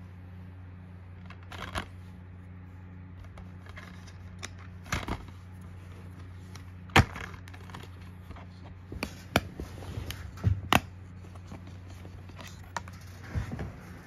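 Plastic DVD keep case being handled and opened: scattered sharp clicks and snaps, the loudest about seven seconds in and a cluster between about nine and eleven seconds as the disc is taken out, over a steady low hum.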